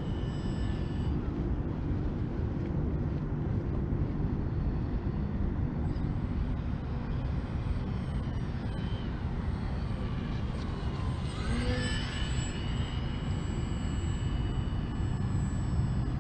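Electric motor and propeller whine of an FMS MXS 1100 mm 3D RC plane in flight over a steady low rumble. About twelve seconds in, the pitch slides as the plane passes close by.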